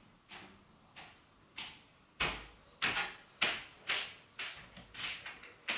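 Footsteps walking toward the room at a steady pace of a little under two steps a second, faint at first and clearly louder from about two seconds in as they come closer.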